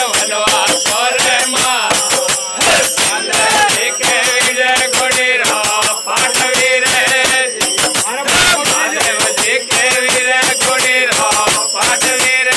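Men singing a Rajasthani devotional bhajan together, accompanied by a hand drum and steady jingling hand percussion in a fast, even rhythm.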